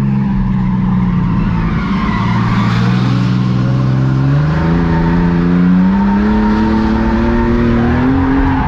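Ford Falcon drift car's engine under load, its pitch dropping just after the start, then climbing steadily through the second half as the revs rise, with tyres squealing as the car slides.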